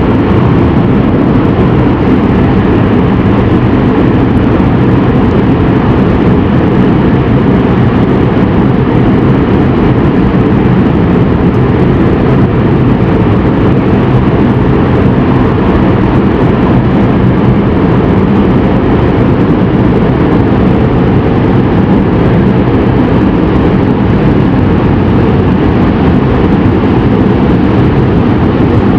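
Mount Bromo's erupting crater giving off a loud, steady low roar that does not let up.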